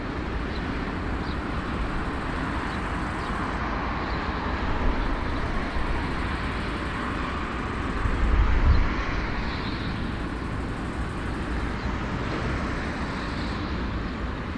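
Jet airliner engines at an airport: a steady rumble and hiss, with the low rumble swelling briefly about eight seconds in.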